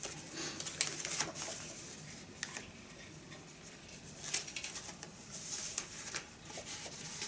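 Vinyl singles in paper and card sleeves being handled: soft rustling with scattered light clicks and taps, and a couple of brief louder rustles in the second half.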